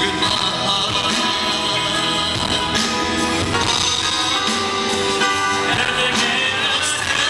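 Live pop concert: a male vocalist singing into a handheld microphone over a band backing, recorded from the audience with distorted, breaking-up sound.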